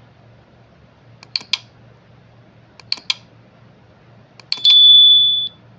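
Buttons pressed on a handheld diagnostic scan tool: two pairs of sharp clicks, then another click and a steady high-pitched beep lasting about a second, the loudest sound.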